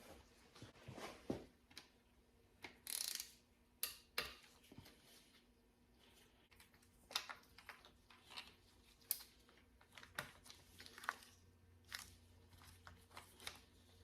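Faint, scattered light clicks and short scrapes of metal engine parts being handled, as a timing chain is worked off its sprocket.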